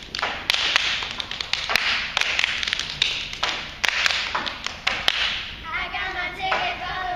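Sharp claps and stomps from a children's stage routine come at an uneven beat, over waves of loud shouting and cheering.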